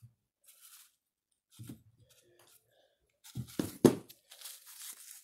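Workbench handling noises: scattered small knocks, a cluster of sharper knocks about three and a half seconds in, then the rustle and tearing of a paper towel.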